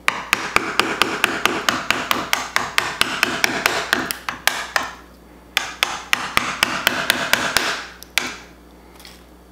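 Steel wood chisel cutting a notch into a wooden stud, making rapid sharp knocks about five a second over the crackle of splitting wood. It pauses briefly about five seconds in and stops about eight seconds in.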